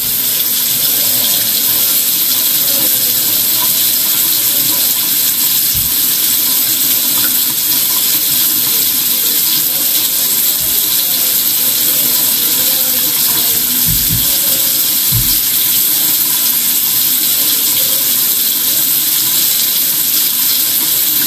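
Steady rushing hiss of running water at an even level, with a few faint low thumps.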